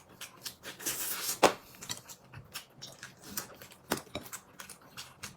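Table eating sounds: scattered light clicks of chopsticks and tableware on dishes, with chewing. The sharpest click comes about a second and a half in.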